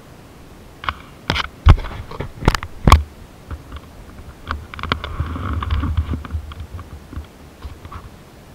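A series of sharp clicks and knocks, several with a low thump, about one to three seconds in, then a rough scraping rustle with a low rumble and scattered clicks for a couple of seconds.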